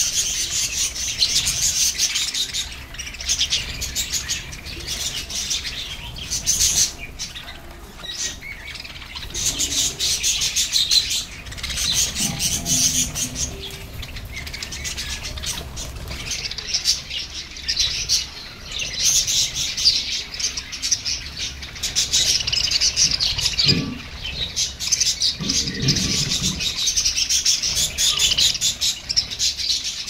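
A flock of budgerigars chattering and chirping continuously: many overlapping high, warbling calls at once.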